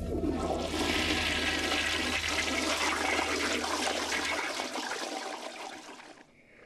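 Toilet flushing: a loud rush of water that starts suddenly and dies away about six seconds in.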